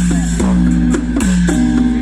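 Music with a steady beat of sharp strikes about twice a second, under plucked, guitar-like tones that step from note to note.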